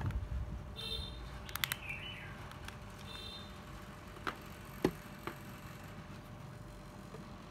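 A small bird chirping twice in short high calls, with a brief falling whistle between them. A few light clicks and knocks of something being handled come later on.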